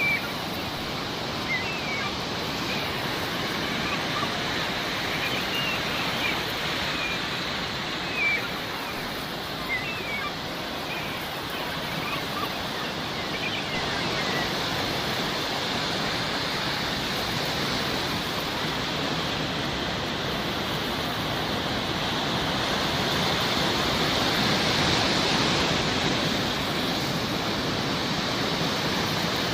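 Sea waves washing steadily on a shore, with short seagull cries scattered through the first dozen seconds. The surf swells a little louder near the end.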